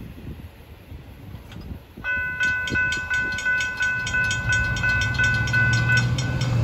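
Railroad grade-crossing warning bell ringing rapidly, about three strikes a second, starting about two seconds in and stopping after about four seconds as the crossing gates rise. Road vehicles' engines start rumbling under it near the end as traffic moves off over the crossing.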